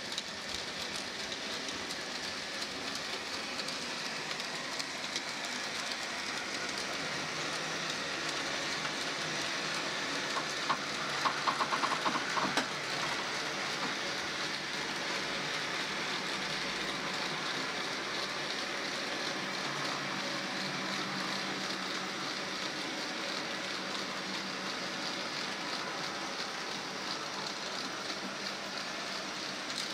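A Graham Farish N gauge Class 20 model locomotive hauls a long train of tank wagons around the track, making a steady rolling hiss of small wheels on the rails. About ten seconds in comes a short run of clicks. The loco has no sound decoder, so only its mechanical running noise is heard and no diesel engine sound.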